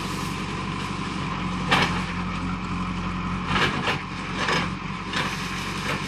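Backhoe loader's diesel engine running steadily, with several sharp knocks over it, the loudest just under two seconds in and a cluster of others in the second half.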